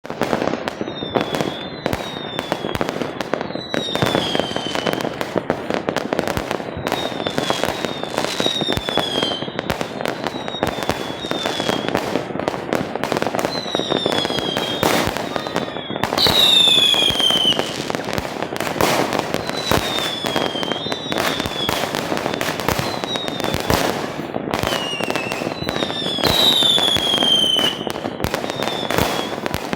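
Fireworks going off without pause: a dense run of sharp bangs and crackle with many whistles falling in pitch, the loudest whistles near the middle and near the end.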